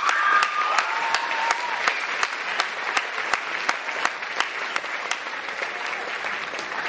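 Audience applauding in an auditorium. One person's claps stand out sharply and evenly, close to the recorder, nearly three a second.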